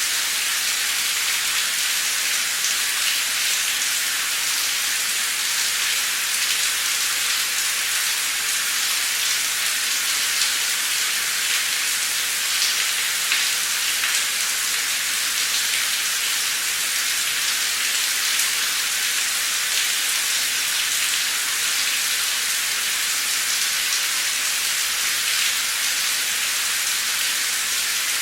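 Heavy, pouring rain: a steady, dense hiss with scattered drop ticks.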